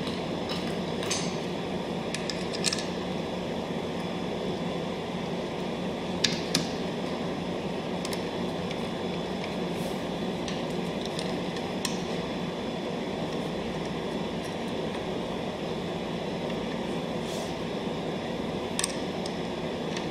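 Light metal clicks and clinks, a handful scattered through, as bolts are fitted into the steel frame and seat tracks of a power seat, over a steady background hum.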